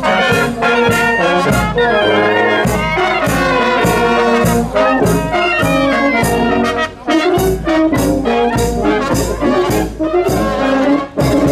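Marching brass band playing: trumpets and a bass horn carry the tune over a bass drum struck about twice a second.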